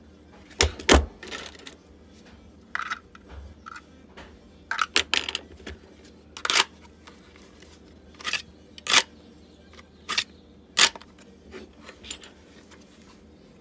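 Scattered sharp clicks and knocks of hard plastic as Kydex holsters and an airsoft pistol are handled and set down on a work mat, about a dozen in all, the loudest two about a second in.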